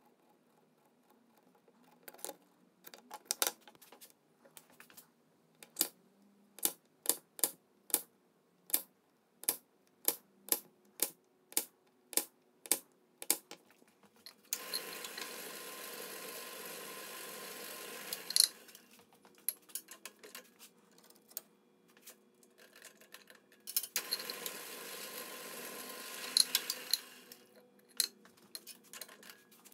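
A run of sharp, evenly spaced taps, about two a second, for some twelve seconds. Then come two spells of about four seconds each of a drill press motor running steadily, with scattered clicks of tools and wood being handled around them.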